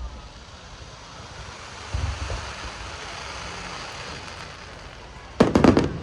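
Fireworks show: a steady crackle of bursting shells, a dull boom about two seconds in, then a quick string of sharp bangs near the end.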